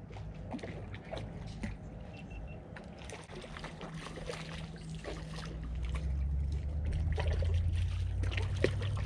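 A hooked trout splashing at the water's surface as it is reeled in close to the bank, with small water splashes. A low rumble grows louder from about halfway through.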